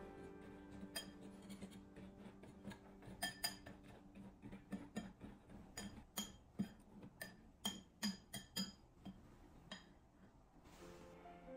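Metal utensil clinking and scraping against a glass mixing bowl while ingredients are mixed by hand: a run of irregular sharp clinks, a few a second.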